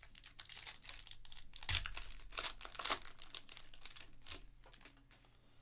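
Foil wrapper of a 2021 Panini Elite Extra Edition baseball card pack crinkling and tearing as it is opened by hand. The crackling is busiest near the middle.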